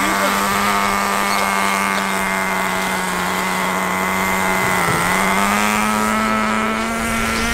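Nitro RC buggy engines buzzing as the cars race: a steady high-pitched drone that dips briefly about five seconds in, then settles slightly higher in pitch.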